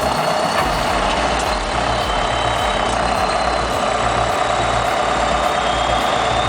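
Bulldozer's diesel engine running steadily under load, with a light regular ticking about twice a second.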